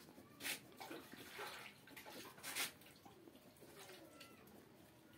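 Faint scratching of a ballpoint pen writing on paper, a series of short strokes with the strongest about half a second and two and a half seconds in.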